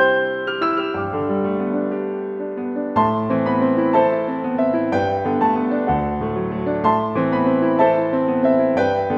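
Background piano music: a gentle piece of struck notes and chords that ring on and overlap.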